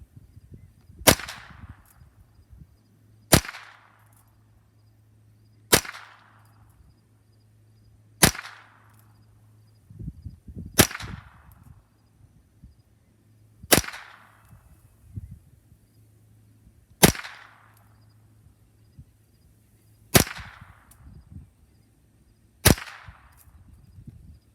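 Nine single shots from an H&K MP5 rifle in .22 Long Rifle, fired slowly and evenly about every two and a half seconds. Each is a sharp crack with a short fading echo.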